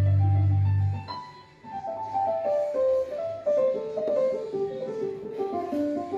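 Korg Kross 2 synthesizer workstation being played: a loud held low bass note for about a second, then a quick run of single notes stepping down in pitch.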